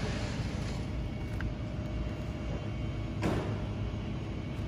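Koenigsegg Agera RS's twin-turbo V8 idling steadily, with a single short knock about three seconds in.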